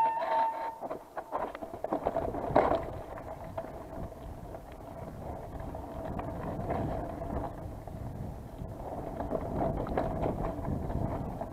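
Mountain bike ridden fast downhill over a rough, wet forest trail: knobbly tyres rumbling over dirt and roots, the bike rattling with sharp knocks over bumps, one harder jolt about two and a half seconds in, and wind on the microphone.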